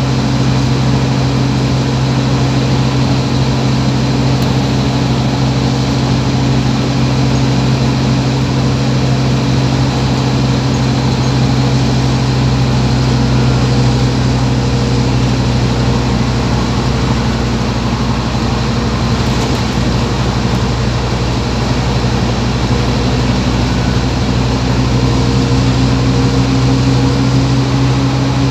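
Scania OmniCity bus's diesel engine running steadily, heard from inside the passenger cabin as a constant low drone, with a higher tone rising slightly near the end.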